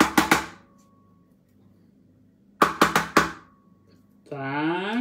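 Wooden spatula knocking sharply against the bowl and metal cake tin to shake off cake batter, in two quick bursts of about four taps each. Near the end comes a short rising hum of a man's voice.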